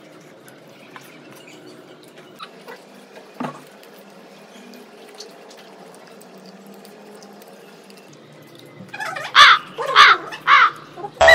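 A crow cawing: three or four loud caws about half a second apart near the end, over a quiet background with a few faint clicks of a spoon against a bowl.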